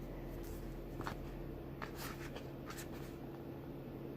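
Faint paper handling: the pages of a K-pop album's photobook being turned, with a few soft rustles and small clicks over a steady low hum.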